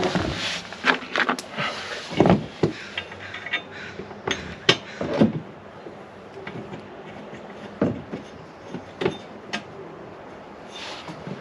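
Scattered clanks, clicks and knocks of hand-tool work on metal parts, at irregular spacing: busy for the first five seconds, then a few single knocks.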